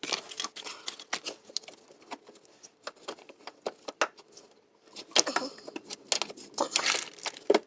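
Pliers gripping and working an old plastic push-pin fastener out of a plastic underbody panel: scattered clicks and scrapes of plastic and metal, getting busier and louder over the last couple of seconds.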